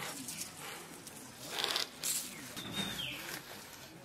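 A knife slicing through a raw bottle gourd held in the hand: a few soft, crisp cutting strokes through the flesh. A short falling bird chirp comes about three seconds in.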